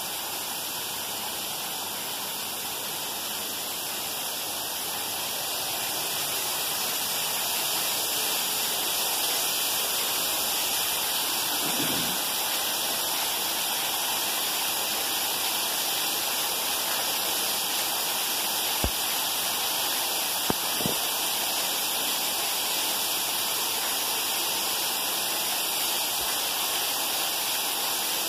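Heavy rain pouring off the roof edges in streams and splashing onto a paved courtyard floor: a steady, dense hiss of falling and splashing water that grows louder about six seconds in. Two small clicks stand out briefly past the middle.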